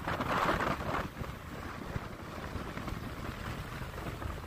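Strong storm wind buffeting the microphone over the rush of heavy surf. The noise is louder for about the first second, then settles into a steady low rumble.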